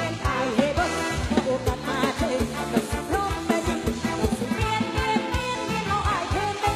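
Lam sing music played live: a singer's gliding melody over a steady, quick drum beat and band backing.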